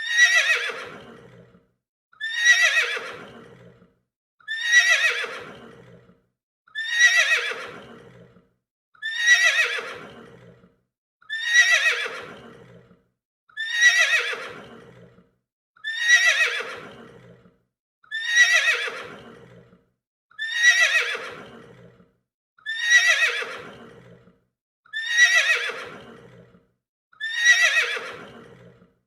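Horse whinnying: the same neigh repeats about every two seconds. Each call starts loud and high, falls in pitch and fades away before the next begins.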